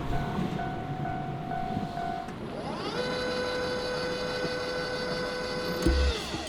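Fading rumble of a train that has just passed, with a steady tone dying out about two seconds in. Then a railway crossing's barrier-gate motor whines as the gates lift: the whine rises in pitch, holds steady for about three seconds and drops away.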